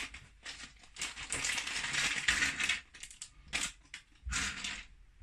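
Rustling, crinkling and small clicks of electronic kit parts being handled by hand, in a few bursts with a brief pause between them.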